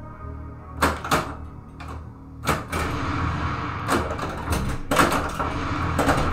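Stern Lightning (1981) pinball machine in play: a dozen or so irregular sharp clacks and knocks from the ball, targets, flippers and solenoids, over a steady low hum.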